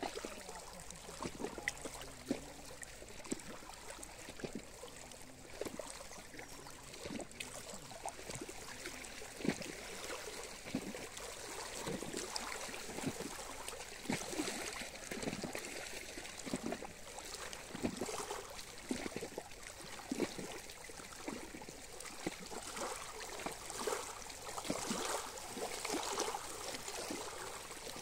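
Small waves lapping against a stony reservoir shore: an uneven run of little splashes over a steady wash of water.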